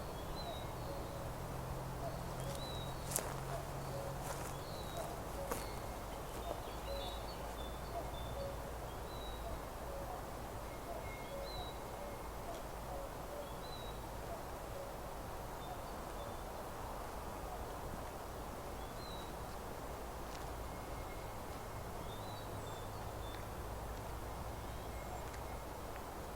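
Meadow birdsong: small birds giving short high chirps on and off, while a cuckoo calls repeatedly at low pitch through roughly the first nine seconds. A few sharp clicks come between about three and six seconds in, over a steady outdoor hiss.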